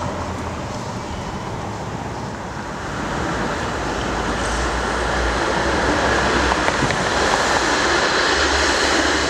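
City street traffic noise, a steady hum of passing vehicles that grows louder about three seconds in.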